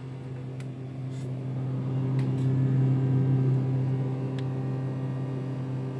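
Polytron two-door refrigerator's compressor running with a steady low hum, swelling louder about two seconds in and easing off near the end: it is cooling again after its faulty thermistor was replaced.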